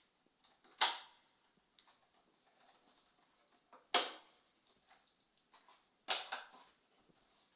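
Sharp clicks and knocks at irregular intervals: a loud one about a second in, another at about four seconds and a cluster around six seconds, with faint ticks between.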